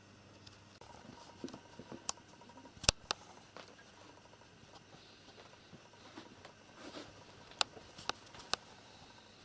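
Ginger cat and white kitten play-wrestling on a rug: faint scattered scuffling and soft taps, with a few sharp clicks, the loudest about three seconds in and a quick run of three near the end.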